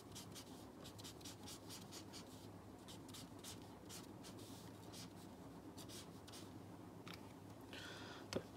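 Faint scratching of a marker pen on paper in quick, short back-and-forth strokes, hatching in a shaded area, with a slightly longer stroke near the end.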